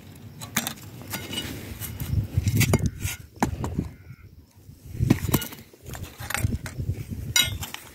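Scrap metal and plastic handled by gloved hands on dirt: scattered clinks, knocks and scrapes as pieces are picked up, turned over and set down, over a low rumble.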